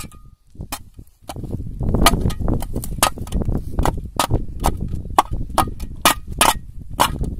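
Steel spade blade striking and scraping a buried rusty metal frame as it is dug out of the soil: sharp metallic clinks about two or three a second, over a low rumble.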